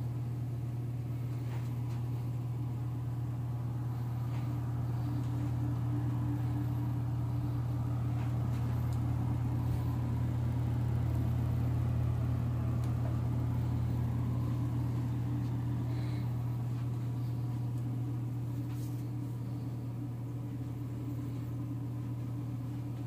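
Steady low machine hum, a little louder around the middle.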